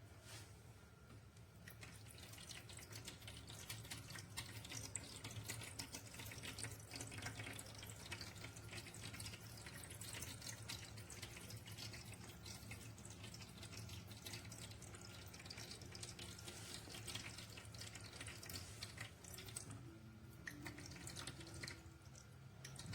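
Faint water trickling and splashing from a pet drinking fountain, over the steady low hum of its pump.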